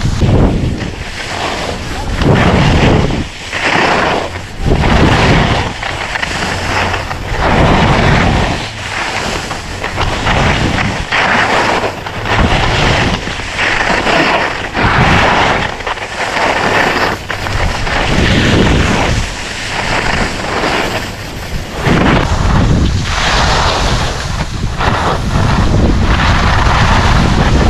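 Wind buffeting a GoPro's microphone while skiing downhill, mixed with the hiss and scrape of skis on packed snow. The noise swells and fades every second or two, as the skier makes each turn.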